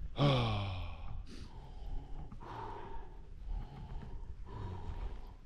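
A person's voiced sigh about a quarter second in, falling in pitch over most of a second, followed by several quieter breaths.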